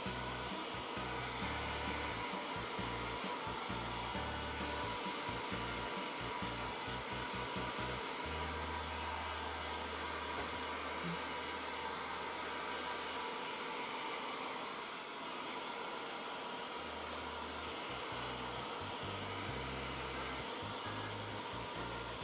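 Hand-held hair dryer blowing steadily, drying a kitten's wet fur after a shampoo.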